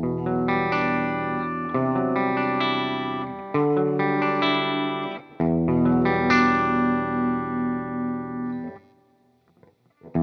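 Electric guitar with humbucker pickups played through a digital Marshall Plexi amp emulation on its clean channel, the guitar's volume knob turned down to clean up the tone. It strums several chords and lets them ring, then stops about nine seconds in.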